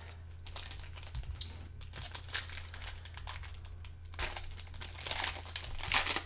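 Plastic trading-card pack wrappers crinkling and tearing as packs are opened by hand, in irregular crackles that get busier and louder in the last two seconds.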